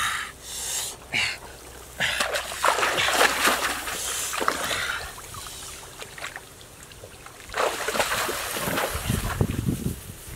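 Water splashing and sloshing as a person wades through a shallow muddy stream, in two stretches starting about two and about eight seconds in.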